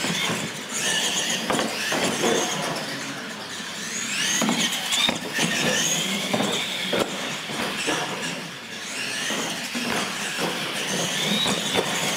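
Radio-controlled monster trucks' electric motors and gears whining at full throttle, the pitch rising and falling as they speed up and slow down, with tires squealing on the concrete floor and short knocks as the trucks hit the ramps.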